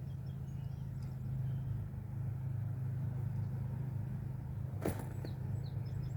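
A steady low motor hum, like a vehicle engine running nearby, with a single sharp click about five seconds in and a few faint high chirps near the end.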